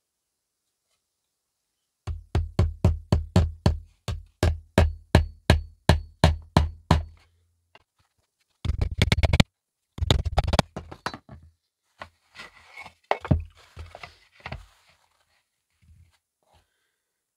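Claw hammer driving small nails into a thin panel on a wooden board: a run of even blows about four a second, then two short flurries of rapid taps. Near the end come rustling and scraping from the board being handled, with a few lighter knocks.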